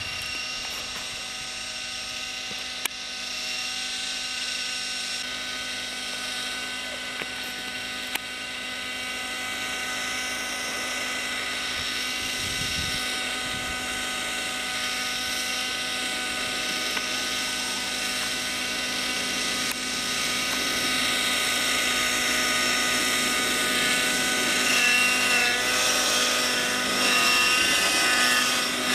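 Radio-controlled model helicopter's small combustion engine and rotors running with a steady high-pitched whine in flight. It grows louder about two-thirds of the way through, and its pitch wavers near the end as it manoeuvres.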